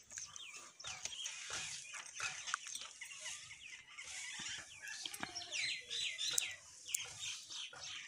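Mynas calling: many short, repeated downward-sliding calls, with a quick run of them about halfway through and a few sharp clicks among them.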